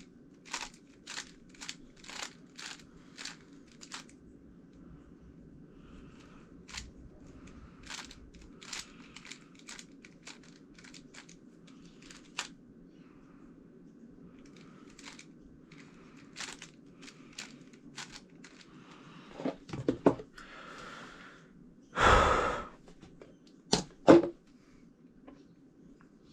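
Plastic clicks of a GAN356 X magnetic speed cube being turned, about two a second at first and then more scattered. Near the end comes a louder rustle lasting about a second, followed by a couple of sharp knocks.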